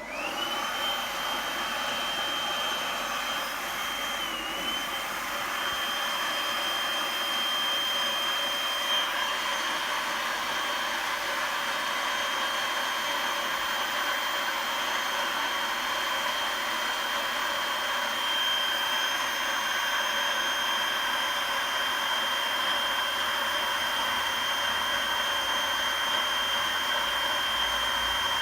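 Makita DUB182 18V cordless blower starting up, its whine rising at once, then running steadily with a high whine over a rush of air as it blows air into an inflatable boat. The whine dips briefly about four seconds in.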